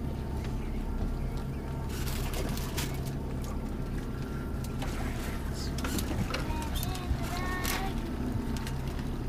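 Boat's outboard motor running with a steady low drone while trolling, with scattered clicks and rattles of a fish being worked out of the landing net and unhooked.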